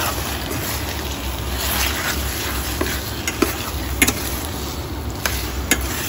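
Chicken pieces and ginger slices sizzling in a stainless steel wok as a metal spatula stirs them, with sharp clinks of the spatula against the pan now and then.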